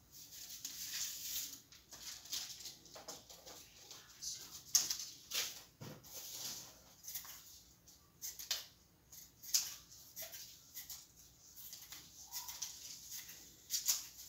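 Paper and craft materials being handled on a tabletop: irregular rustles, taps and clicks, a few of them sharper and louder.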